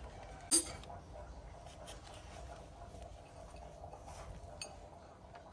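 Light kitchen handling noises: a sharp click about half a second in, then faint scattered ticks and scraping from utensils and containers being moved.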